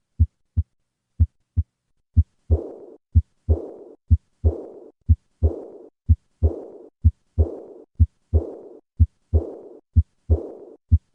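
Heart sounds heard through a stethoscope at about one beat a second, each beat a low two-part lub-dub. The first two beats are clean. From about two seconds in, each second sound is followed by a high-pitched, decrescendo diastolic murmur that fades out before the next beat: the murmur of aortic regurgitation, heard at rest.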